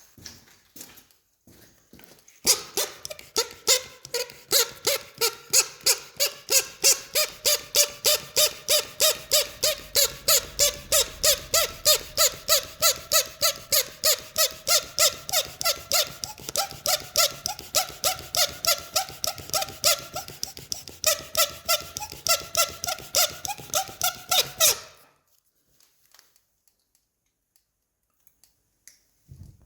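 Rapid, regular squeaking, about three squeaks a second, each with a pitch that drifts slightly; it starts a couple of seconds in and stops abruptly near the end.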